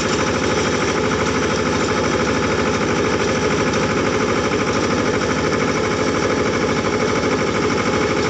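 Farm tractor engine running steadily, heard close up from the seat, with a fast even throb.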